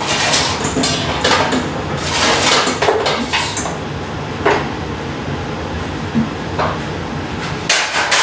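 Tongs scraping and clattering on a metal baking sheet and a stainless steel mixing bowl as cooked chicken wings are pushed off the sheet into the bowl. There is a quick run of clinks and knocks for the first three seconds or so, then a few separate knocks.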